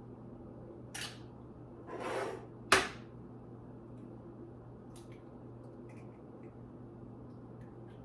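Kitchen handling sounds: a brief scrape, then a short rustling swell, then one sharp knock of something set down hard, over a steady low hum.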